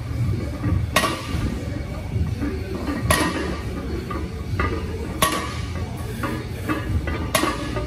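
Loaded 315 lb barbell set down on the floor between deadlift reps, the plates clanking on each touchdown, four times about two seconds apart, over a steady low background with some music.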